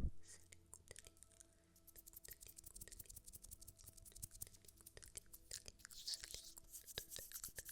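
Faint close-mic ASMR trigger sounds: a dense, irregular run of soft clicks and crackles, over a low steady electrical hum.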